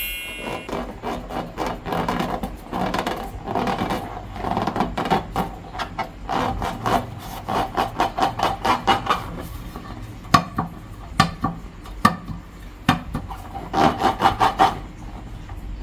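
Slime being squeezed and worked by hand, a dense run of small crackles and rubbing noise, with a few sharper clicks past the middle.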